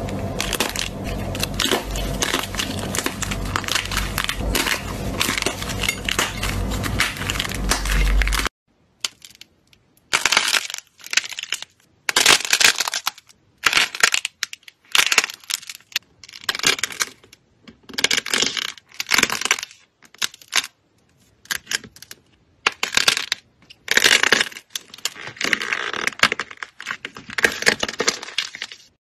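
Crunchy slime squeezed and pressed by hand, crackling and popping. For the first eight seconds or so the crackle is dense and continuous over a low steady hum. It then stops abruptly and gives way to separate crunching bursts, about one a second.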